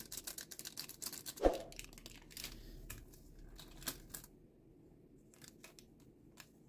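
Metal cookie cutter being pressed down through soft chickpea-flour dough on parchment paper: a run of small clicks and paper crinkles, with one dull thump about one and a half seconds in, then fainter scattered clicks.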